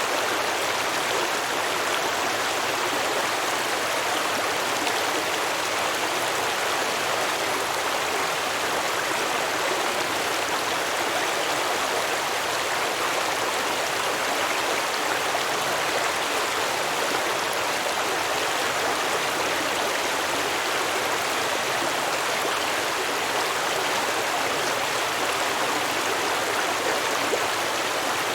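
A stream flowing and babbling over rocks, a steady rush of water with no breaks or changes.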